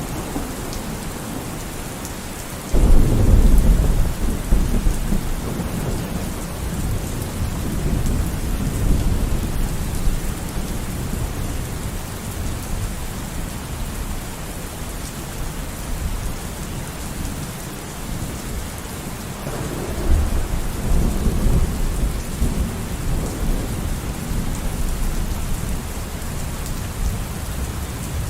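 Steady rain falling, with thunder rolling in twice: a sudden loud rumble about three seconds in that fades over several seconds, and a second, weaker roll about twenty seconds in.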